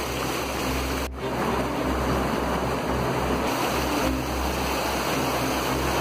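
Rushing water of river rapids: a steady wash of white water pouring over rocks and a weir, with a brief break about a second in where the shot changes.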